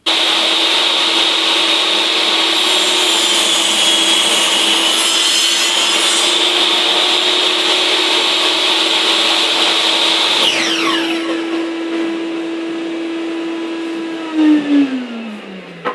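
Electric power saw running and cutting through 4x2 timber for the stand's legs, then switched off about ten seconds in, its whine falling steadily in pitch as the blade spins down.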